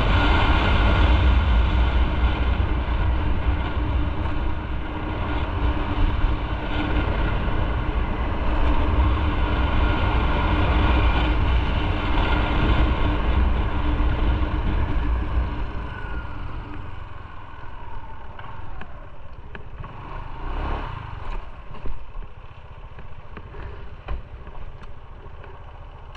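Motorcycle on the move, a steady, loud riding rumble that drops noticeably quieter about two-thirds of the way through.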